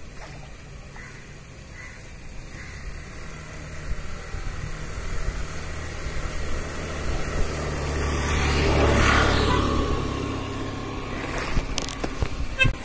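An engine passing by: a low hum that builds from about three seconds in, is loudest around nine seconds, then fades away. Water splashes briefly near the end.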